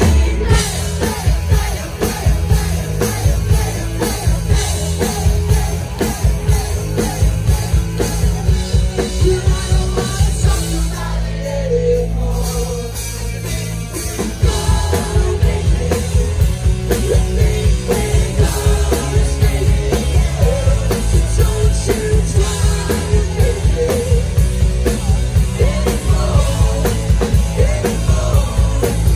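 Live rock band playing a song with singing and a driving drum beat; the drums thin out for a few seconds around the middle, then the full band comes back in.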